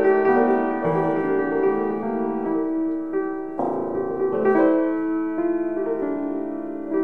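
Solo piano improvisation: sustained chords under a moving melody, with the notes ringing on into one another. It eases off slightly just past the middle, then a fresh chord comes in.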